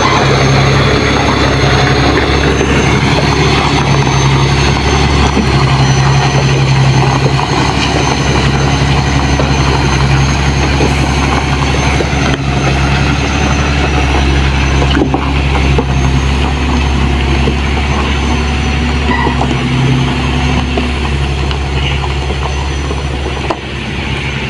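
MAN TGS 40.440 heavy truck's six-cylinder diesel engine running steadily, a deep, constant drone with a faint steady high whine above it.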